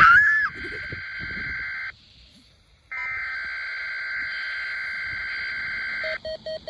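Weather radio receiver sounding the digital header tones of an Environment Canada Required Weekly Test: a long, harsh, buzzing data burst ends about two seconds in, and after a second's pause a second burst runs for about three seconds. A brief loud rising squeal sits right at the start, and near the end a lower beep starts pulsing about four times a second.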